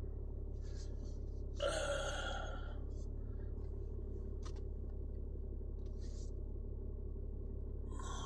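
Pickup truck engine idling, heard as a steady low hum inside the cab while reversing slowly. About two seconds in, a short breathy sigh.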